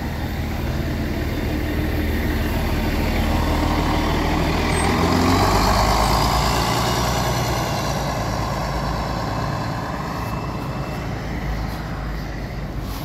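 Articulated city bus pulling away from a stop and driving past, its engine loudest about five seconds in as it passes, then fading as it drives off. The engine has no nasty noise.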